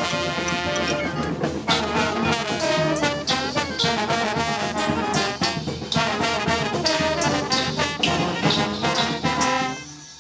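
Street brass band playing, trombones and trumpets over steady drum hits. The music stops near the end.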